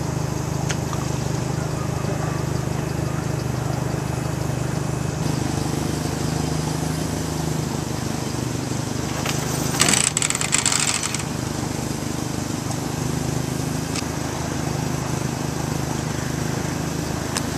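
The engines of a Jeep Wrangler YJ and a Chevy pickup idle steadily, with a second, deeper engine note joining about five seconds in. About ten seconds in comes a brief clattering burst, and there are a couple of sharp clicks.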